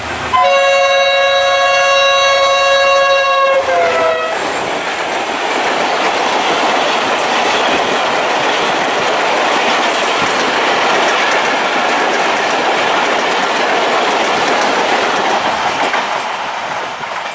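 Diesel locomotive horn sounding one long chord for about three and a half seconds, its pitch dropping as it ends. Then the steady rush and wheel clatter of passenger coaches passing close by on the track.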